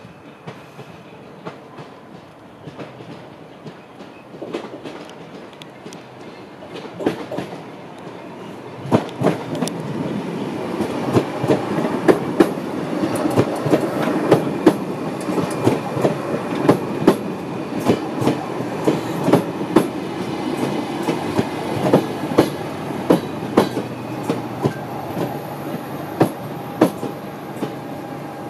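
PKP Intercity Stadler Flirt ED160 electric multiple unit approaching and then running past close by, its wheels clicking over the rail joints in a steady clickety-clack. It grows louder over the first several seconds, and the clicking starts about nine seconds in.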